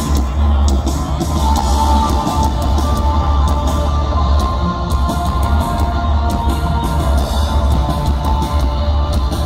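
Post-punk band playing live with drums and guitar, loud, with a heavy booming low end.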